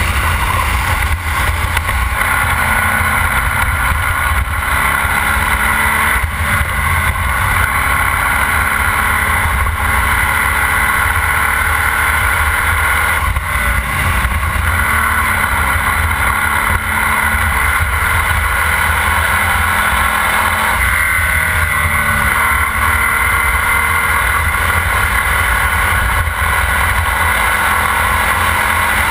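Formula Vee race car's air-cooled Volkswagen flat-four engine running hard at racing speed, recorded by the car's onboard camera. The engine note is loud and steady, dipping and climbing again about halfway through and again about two-thirds in.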